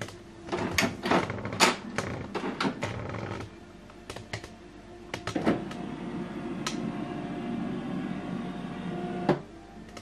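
HP DeskJet 4120e inkjet printer working after its ink cartridges are installed: a run of clicks and knocks, then a steady motor whir for about four seconds that stops with a sharp click.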